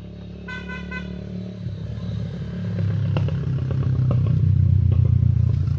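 A motor vehicle engine passing close by, its low rumble growing louder over a few seconds and easing off near the end.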